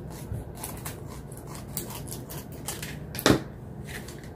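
Plastic film of a laminating pouch crackling and clicking as the laminated card is flexed in the hands, a string of small crackles with one louder snap about three seconds in. The crackle comes from the pouch being only half sealed, its film not bonded to the card.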